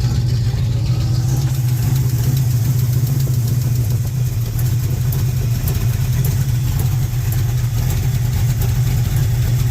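Small-block Chevy V8 idling steadily but roughly, with an audible misfire: a bad ignition system, with a possible knock or dead cylinder still under suspicion.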